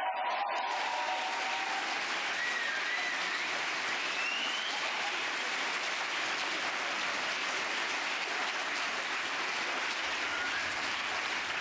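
A large audience clapping steadily: sustained applause from a packed hall.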